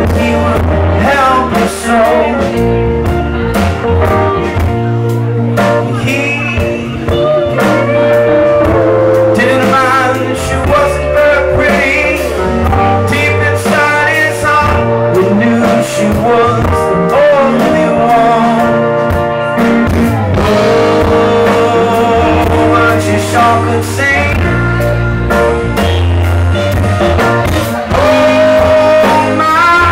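Live rock band playing a song: a man singing lead over acoustic and electric guitars, bass guitar, keyboard and drums.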